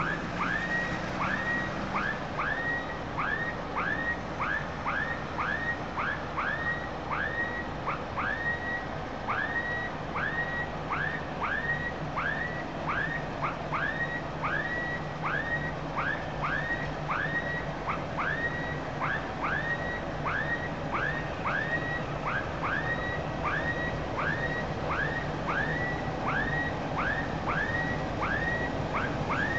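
Level crossing warning alarm sounding as a train approaches: a short electronic tone that sweeps upward and holds, repeating steadily about three times every two seconds, over a low steady drone.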